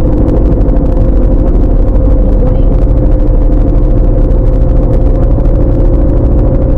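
Steady, loud engine drone with low rumble and a constant hum, like a vehicle running at an even speed.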